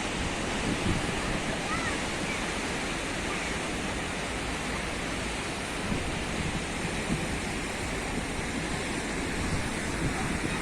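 Rough sea surf washing steadily against the shore, with wind rumbling on the microphone.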